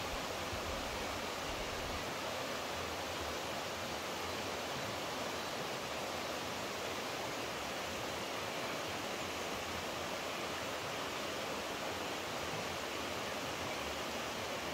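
Flowing water rushing steadily, an even hiss with no splashes or breaks.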